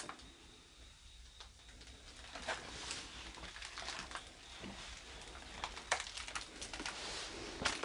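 Footsteps on a debris-strewn floor: scattered light scuffs, crackles and clicks at an uneven pace.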